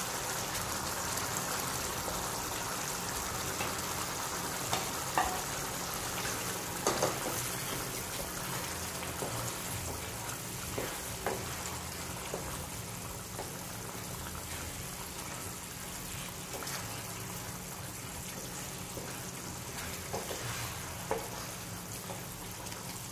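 Pork menudo sauce simmering and bubbling in a pan with freshly added pork liver, a steady sizzle, with a few light clicks scattered through it.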